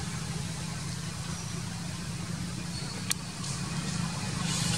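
Steady low engine hum, with one sharp click about three seconds in.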